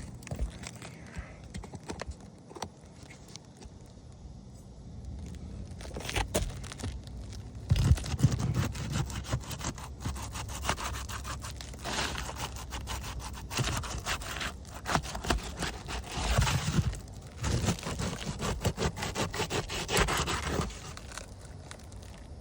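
Brittle asphalt roof shingles being pried up from their sealant strip, with scraping, crackling and tearing that grows denser from about eight seconds in. The shingle's mat is tearing away and sticking to the course below (mat transfer), a sign the shingles cannot be resealed or repaired.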